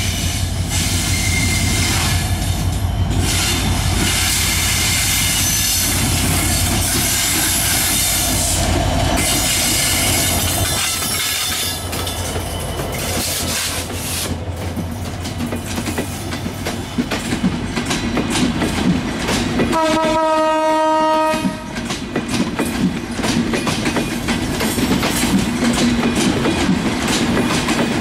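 An EMD GT42 diesel-electric locomotive passes close by with a heavy low engine rumble. Passenger coaches then roll past, their wheels clicking rhythmically over the rail joints. About two-thirds of the way through, a train horn sounds one steady blast of about a second and a half.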